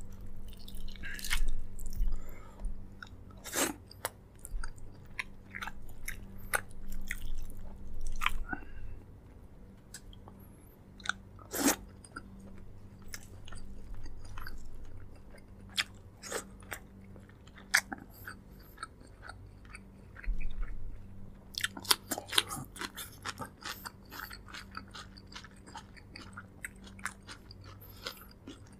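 Close-up eating sounds: chewing and biting of braised pork leg, with wet smacks and irregular crunchy clicks. A thick run of them comes about three quarters of the way in.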